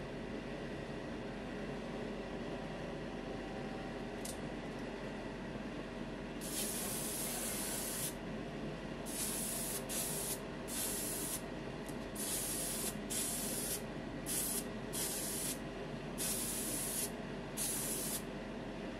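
Airbrush spraying automotive 2K clear coat in short hissing passes, about ten of them starting about six seconds in, over a steady background noise.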